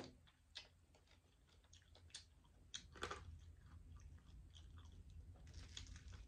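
Close-miked chewing and biting of fried chicken wings: soft, irregular wet clicks and crisp crackles, with one louder crunch about three seconds in.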